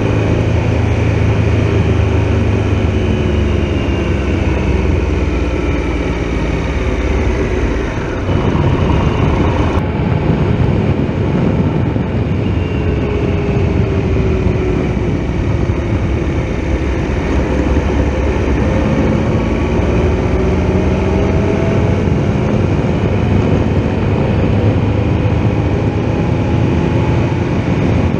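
Triumph Tiger Explorer XRx's three-cylinder engine running at road speed under heavy wind rush, its note rising and falling as the motorcycle speeds up and eases off.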